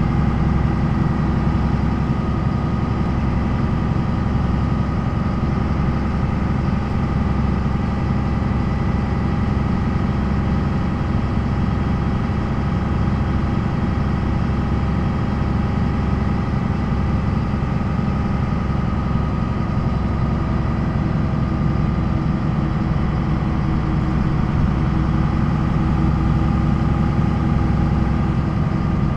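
MAN NL 263 city bus's D28 inline-six diesel running at steady, unchanging revs, with a constant engine note.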